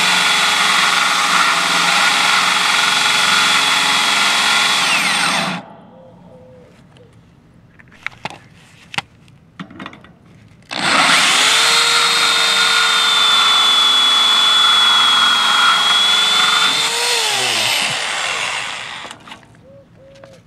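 High-speed rotary tool with a diamond-tipped cutoff wheel grinding a slit into the stainless steel hex shell of a GasGuard locking cap on a refrigerant service valve: a steady high whine with grinding hiss for about five seconds. Then comes a pause with a few small clicks, then a second run of about six seconds whose pitch falls as the tool winds down near the end.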